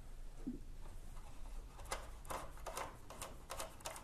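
Faint light metal clicks, several a second and irregular, beginning about two seconds in, as a hex key is worked on a screw of a motorcycle's rear-axle chain adjuster.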